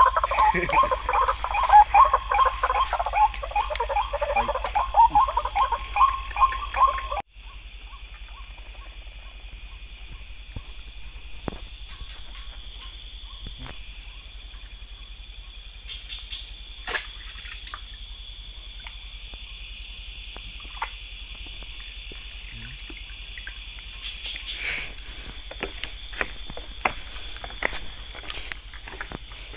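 A loud chorus of frogs calling in rapid pulsing notes, which stops abruptly about seven seconds in. Crickets and other night insects then trill steadily at a high pitch, with a few scattered sharp clicks.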